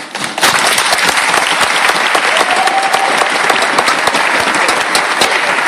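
A large audience applauding steadily, with many individual claps standing out from the even wash of clapping.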